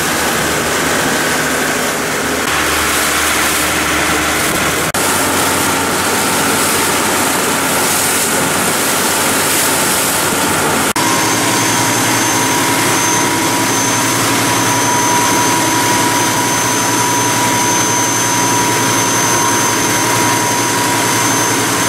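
Motorboat engine running at speed, with rushing wind and water spray over it. Its steady note changes abruptly twice, about five and eleven seconds in.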